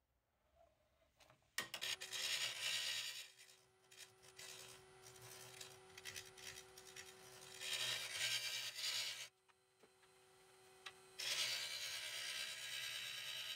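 Lathe gouge cutting a spinning wood-and-resin blank: a scraping, rasping cut that comes and goes in stretches over a steady motor hum. It starts after a short near-silent moment about a second and a half in, and drops out briefly near the end before the cut resumes.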